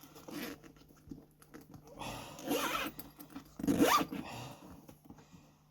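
Zipper on a leather bag being pulled along its track, with two main runs about two and about four seconds in and quieter rubbing and handling between. The zipper has just been sewn back into the bag.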